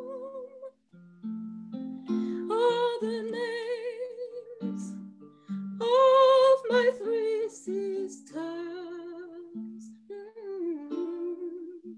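A woman singing long, wavering notes with strong vibrato over an instrumental accompaniment of sustained low notes. The music breaks off briefly about a second in, then resumes.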